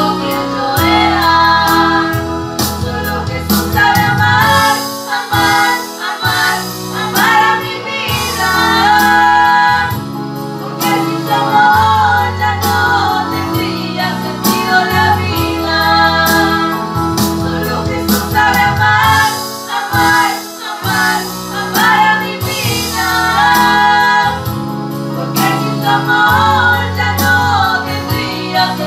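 Women singing a song to an electronic keyboard's accompaniment, with held chords, bass notes and a steady beat under the sung melody.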